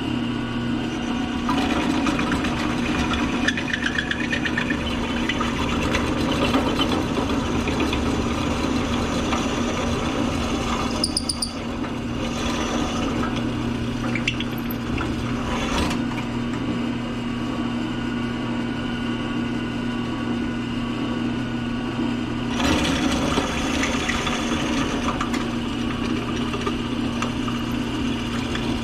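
Drill press motor running with a steady hum while a step drill bit cuts into an aluminium tube to counterbore a hole. The cutting noise comes in two long spells, with a brief high squeal about eleven seconds in.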